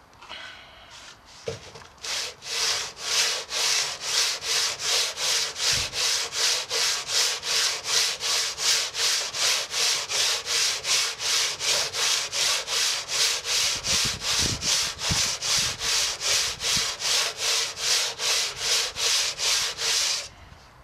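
Hand sanding with coarse P60 glass paper wrapped round a length of 4x2 timber, rubbing down cured fibreglass resin on a car's front wheel arch: steady back-and-forth rasping strokes, about two a second, starting a couple of seconds in and stopping just before the end.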